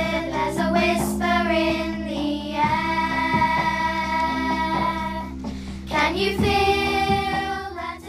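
A class of primary-school children singing a song together, holding long notes, with a brief pause about six seconds in.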